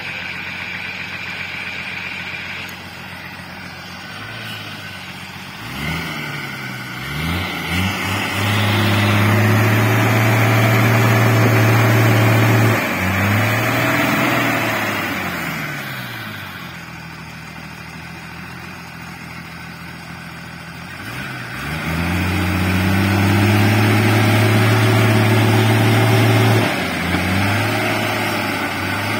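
An old military-style truck's engine working up a steep dirt track. It runs low at first, then revs up and holds high revs for several seconds, drops back, and revs up and holds again about two-thirds of the way through.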